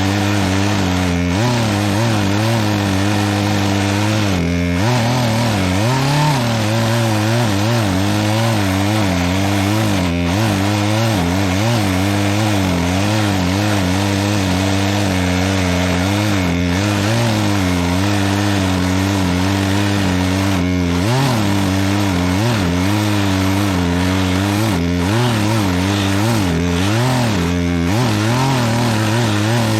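Gas chainsaw running under load, cutting through a pine trunk, its pitch dipping and recovering again and again through the cut. The chain is dull: the owner says he probably could have started with a sharper chain.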